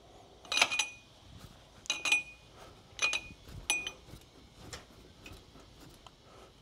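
Sharp metallic clinks, each with a brief ring, about one a second, from a motorcycle front fork being pumped upside down through its travel to bleed out the old fork oil. The clinks grow fainter after about four seconds.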